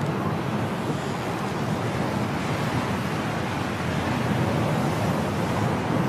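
Storm wind blowing hard and steadily: a dense, even rushing noise.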